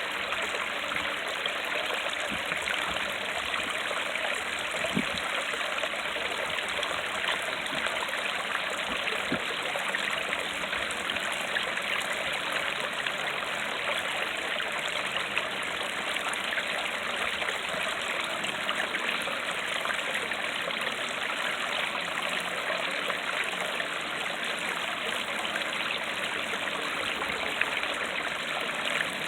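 Creek water running over rocks and falling in a small waterfall: a steady rushing and splashing.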